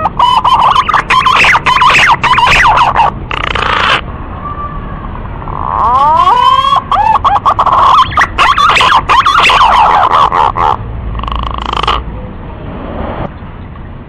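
Male pink-necked green pigeon calling in two bouts, each opening with rising whistled notes that run into a fast string of notes. The second bout stops near the end.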